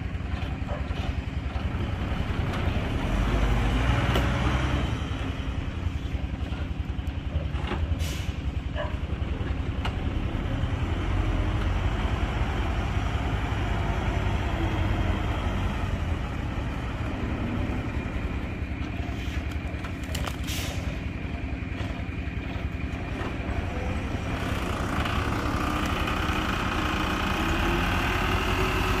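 Heavy diesel engine running steadily, swelling briefly a few seconds in, with two short sharp noises along the way.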